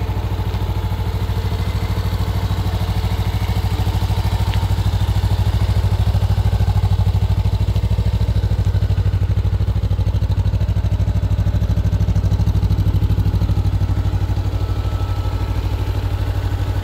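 Honda CB500F's parallel-twin engine idling steadily in neutral, with an even, regular exhaust pulse.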